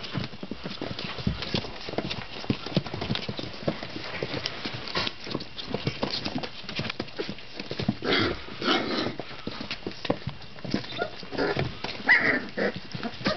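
Many Weimaraner puppies' paws and claws clicking and scrabbling on newspaper as the litter mills about, with a couple of short puppy yelps, the loudest near the end.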